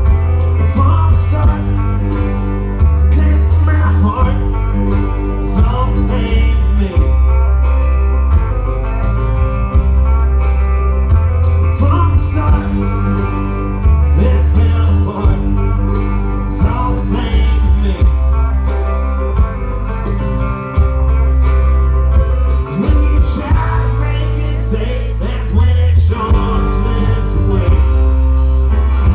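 Live rock band playing loud, in a country-tinged style: electric guitars over a heavy, steady bass line and drums.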